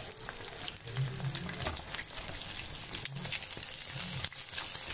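Four eggs frying in hot oil in a pan, sizzling with a steady crackle and spitting.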